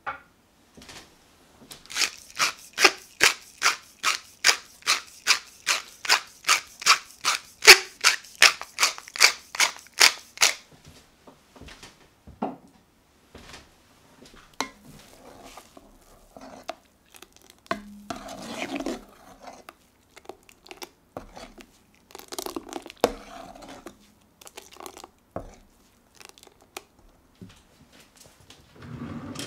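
Pepper mill grinding black pepper over the pot: a run of even, crunchy grinding strokes, about two to three a second, for some eight seconds. Then scattered light clicks and short scrapes.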